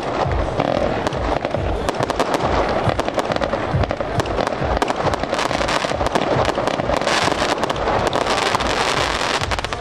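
Fireworks display going off in a rapid, continuous barrage of bangs and crackles, with deeper booms underneath.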